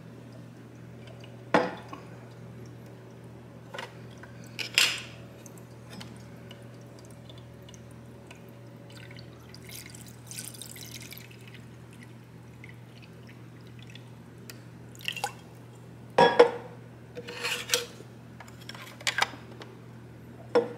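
Water poured from a glass pitcher into a potted plant, a short faint trickle about halfway through. Sharp knocks and clinks of glass on a tabletop, one early, another a few seconds later and several close together near the end, over a steady low hum.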